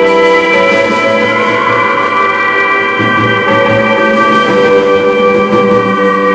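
Live experimental rock band playing: loud sustained chords that drone and slowly move to new notes, over drum-kit playing with cymbals.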